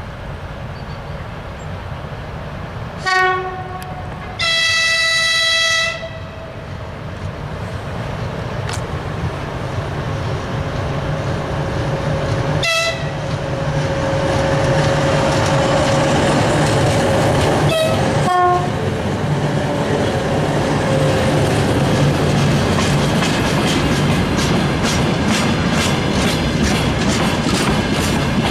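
2TE116 two-section diesel locomotive hauling a long train of tank cars past. A short low horn blast comes about three seconds in, then a longer, higher horn blast. The diesel engines' rumble grows louder as the locomotive draws level, with a few brief horn toots, and in the last few seconds the tank cars' wheels clatter over the rail joints in an even rhythm.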